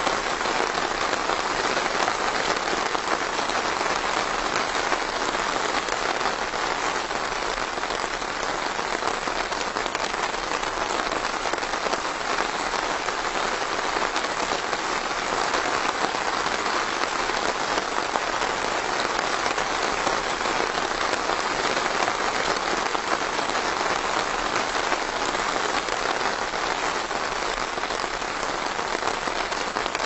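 Steady rain falling: a dense, even hiss of countless drops, unchanging throughout.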